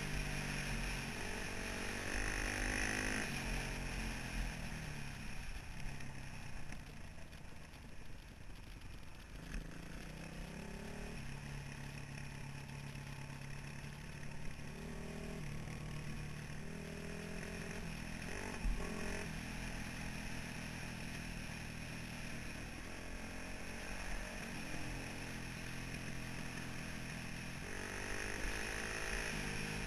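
2003 Honda CRF450R's single-cylinder four-stroke engine pulling along a dirt trail, its pitch rising and falling with the throttle. It eases off for a few seconds early on, then picks up again and revs higher near the end. There is a single sharp knock about two-thirds of the way through.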